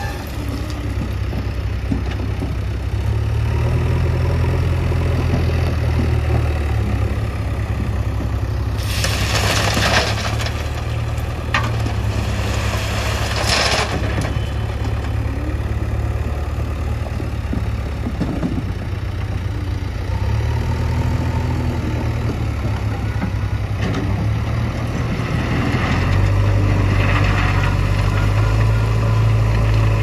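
Diesel engine of a JCB backhoe loader running at work, its low drone swelling as it is throttled up for a few seconds at a time, with two short rushing noises about ten seconds in and again near fourteen.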